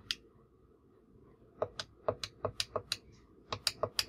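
Keypad buttons of a Grandstream GRP2612 IP desk phone clicking as they are pressed over and over to enter a password letter by letter, several presses per character. One click, a pause of about a second and a half, then quick runs of clicks about five a second with a short break near three seconds in.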